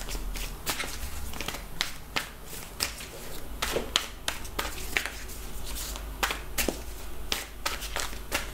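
A deck of tarot cards shuffled overhand by hand: an uneven run of sharp card clicks and slaps, about two or three a second, as cards drop from one hand into the other.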